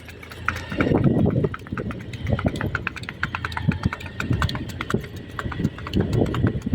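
Horse's hooves clopping, a rapid, uneven run of hoof strikes, with heavier low thuds about a second in and again near the end.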